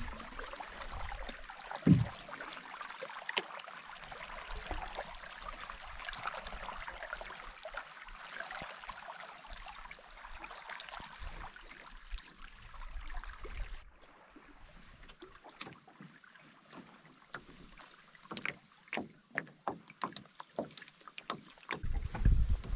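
Canoe paddling on calm water: paddle strokes splashing and dripping, with one loud knock about two seconds in. Midway the sound cuts to quieter water, then a run of sharper splashes, and wind rumbles on the microphone near the end.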